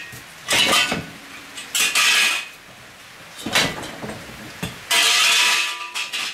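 Parts of an old Weber kettle grill clanking and scraping against each other and the cardboard box as they are handled: several short bursts of scraping and rustling, a metal knock with a brief ring about halfway through, and a longer scrape near the end.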